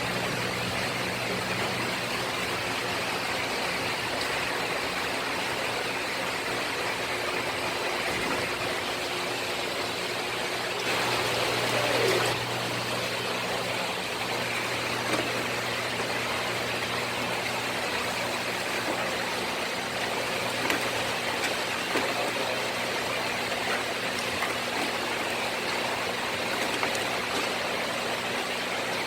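Steady low machine hum under a constant rush of water-like noise, with a brief louder swell about twelve seconds in.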